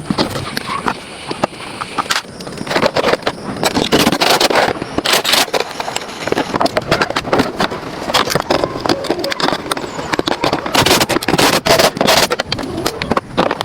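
Irregular scraping and knocking: many short, uneven strokes, like tools and parts being worked by hand on a car.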